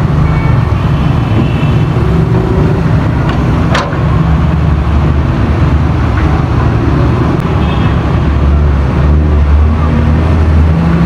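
Diesel engine of a tracked hydraulic excavator running close by as it works a pile of sand, a loud low rumble that rises under load about four seconds in and again near the end, with street traffic behind it. A brief sharp clank about four seconds in.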